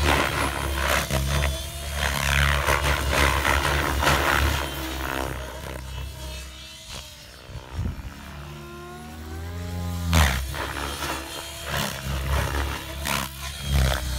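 700-size radio-controlled helicopter flying hard 3D aerobatics: rotor blades chopping and whooshing over a drivetrain whine, swelling and fading as it swings about. The sound drops away while it climbs high, then a rising whine builds to the loudest pass about ten seconds in.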